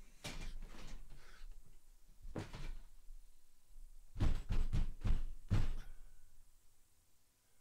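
Thuds and knocks from a desk and gaming chair being bumped and pushed about. The loudest is a quick run of about five heavy thumps about four to five and a half seconds in.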